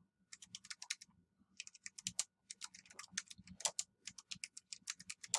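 Typing on a computer keyboard: quick runs of keystroke clicks broken by short pauses.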